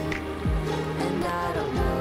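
Background music: a pop song with a steady low drum beat and bass under sustained chords.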